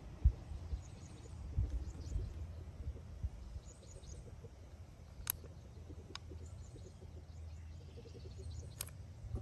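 Faint bird chirps over a low steady rumble. A few knocks and sharp clicks come from handling the bottle as Slime tire sealant is squeezed into the tire's valve stem; the loudest knock is just after the start.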